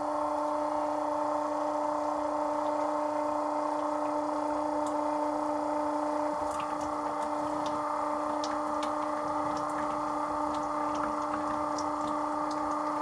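Battery-powered oil-changer transfer pump running with a steady hum, drawing old engine oil out of a diesel's sump. The oil is so thick that the pump is sucking hard.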